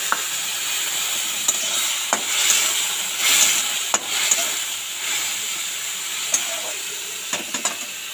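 Egg curry sizzling in a metal kadai, with a steady hiss. A metal spatula stirs it and clicks and scrapes against the pan now and then.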